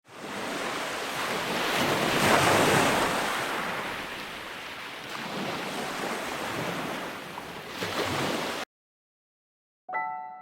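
Sea surf washing onto a beach, with wind on the microphone; the wash swells about two seconds in. Near the end it cuts off abruptly, and soft piano notes begin.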